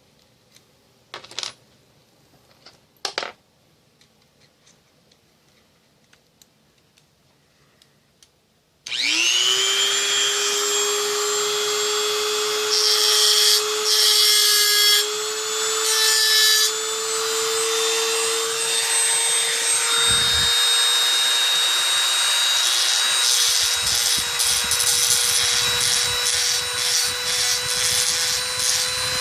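A small high-speed rotary tool starts up about a third of the way in, its whine rising briefly and then holding steady as it grinds away at a toy truck's fender to round out the wheel opening. The grinding comes and goes at first, then runs on continuously. Before the tool starts there are only two light clicks.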